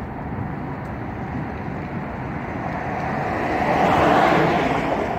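A car driving past close by, its tyre and engine noise swelling to a peak about four seconds in and then fading, over steady background noise.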